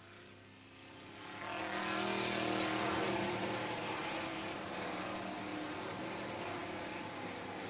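V8 race car engine running hard at speed, growing from faint to loud over the first second and a half as the car comes up the straight, then holding a steady, even note.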